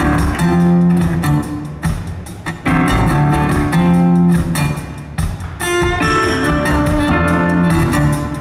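A live rock band plays an instrumental passage: a riff repeated in phrases about two seconds long over a strong low bass line, recorded from the audience in an arena hall.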